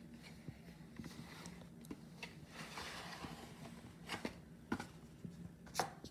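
Faint handling of a VHS tape: a rubbing, rustling hiss as the plastic cassette slides out of its cardboard sleeve, then a few light clicks and taps of the cassette shell, the sharpest near the end.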